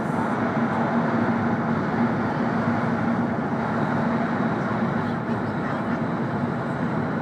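Cabin running noise of a W7 series Shinkansen travelling at speed: a steady rushing rumble with a constant low hum underneath.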